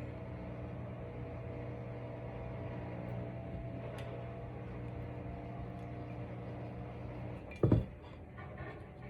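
A steady low mechanical hum with a few even tones that stops about seven and a half seconds in, followed at once by a single loud knock, then a few faint light clicks of handling.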